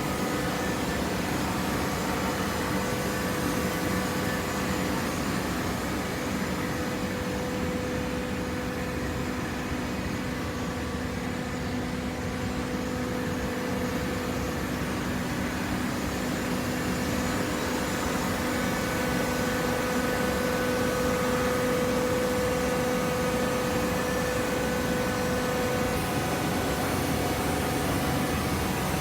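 Hydraulic cardboard baler running: a steady mechanical hum with a constant tone, getting a little louder after about the halfway point.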